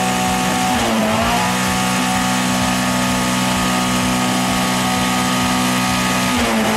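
Car engine with a loud modified exhaust held at high revs for a decibel test, steady in pitch, dipping briefly about a second in and again near the end before climbing back up.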